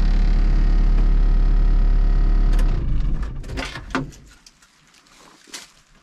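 Volvo EC35C mini excavator's diesel engine idling steadily, then shut off about two and a half seconds in and running down to a stop over a second or so, after a cool-down idle. A few light clicks follow in the quiet.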